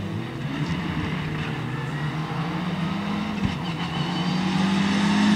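Mitsubishi Lancer Evolution rally car's turbocharged four-cylinder engine pulling hard out of a corner, its note rising steadily in pitch and getting louder over the last few seconds as the car comes closer.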